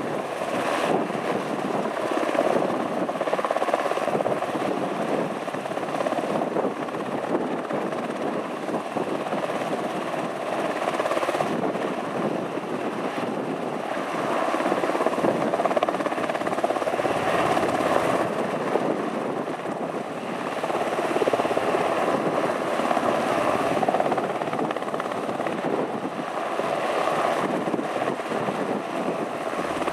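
Sikorsky S-70 Black Hawk helicopter hovering low overhead: the steady, dense noise of its main rotor and twin turboshaft engines.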